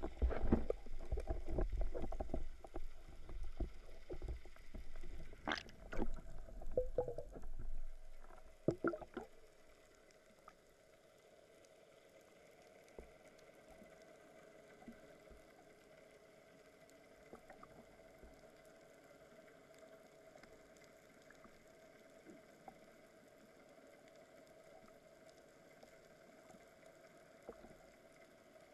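Underwater sound picked up by a speargun-mounted camera in its housing: water rushing and knocking against the housing as the diver moves, loud and irregular for about the first nine seconds. Then it falls quiet to a faint steady underwater hum with scattered small clicks while the diver lies still.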